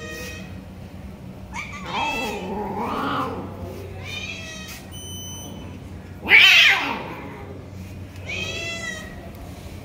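Several stray cats meowing for food, about five separate meows spread out, some drawn out. The loudest is a harsher, falling cry about six seconds in.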